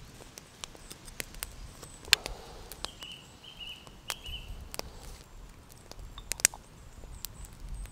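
Ground coffee being spooned into the metal filter basket of an aluminium moka pot: scattered light taps and clicks of a wooden spoon and metal parts, with two sharper clicks about two and six seconds in. A bird chirps in a short run of high notes about three to four seconds in.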